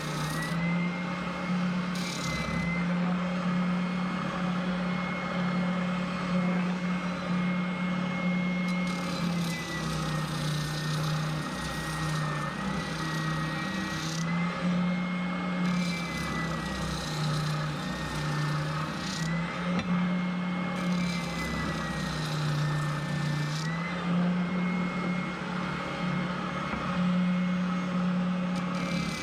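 Electric sander running steadily while the edge of an aluminum plate is sanded. Its motor tone dips in pitch and recovers every few seconds.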